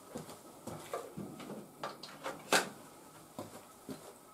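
Handling noises: a string of light clicks and knocks, the loudest a sharp knock about two and a half seconds in.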